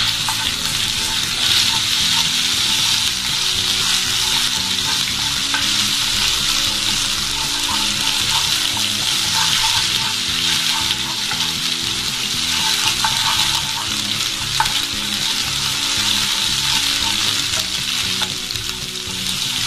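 Ginger-garlic paste, ground green chilli, fennel and cumin seeds sizzling in hot oil in a nonstick kadai, with a steady hiss, while a wooden spatula stirs and scrapes them around the pan.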